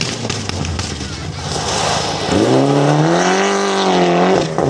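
Rally car sliding through a loose, dusty corner, tyres scrabbling and stones clattering, then its engine revs up hard about two seconds in as it accelerates away, with a brief break for a gear change near the end.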